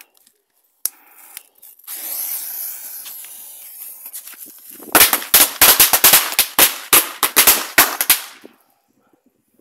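Pirata Zebrotto firecracker going off: about three seconds of steady hissing from the burning fuse, then a rapid run of some fifteen sharp bangs over about three seconds that stops abruptly.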